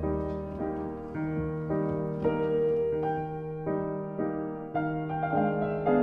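Background piano music: a gentle melody with a new note or chord about every half second over a sustained low note.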